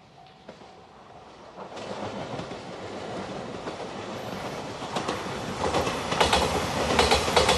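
A five-car JR Shikoku 8000-series electric limited express (Shiokaze) approaching and running over a level crossing. It grows steadily louder, and its wheels clatter rhythmically over the rail joints in the last couple of seconds.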